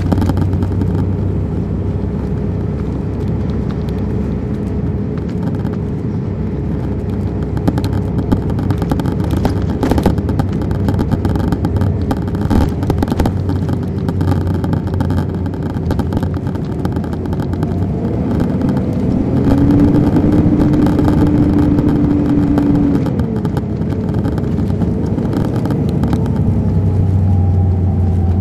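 Inside a 2001 MCI D4000 coach under way: the Detroit Diesel Series 60 diesel and Allison transmission running with a steady whine over a low engine rumble, with scattered rattles and knocks from the body. About two-thirds of the way through, the pitch rises and a second, stronger whine holds for a few seconds, then falls back.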